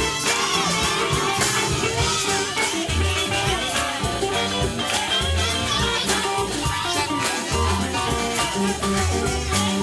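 Live soul band playing: drum kit, bass and guitars with keyboard.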